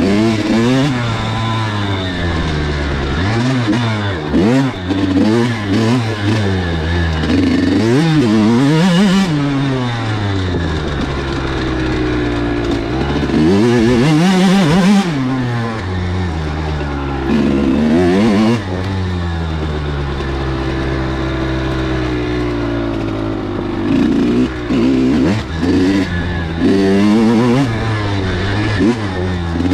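Kawasaki KX100 dirt bike's small two-stroke single-cylinder engine under way, revving up and down again and again, its pitch climbing and dropping with the throttle.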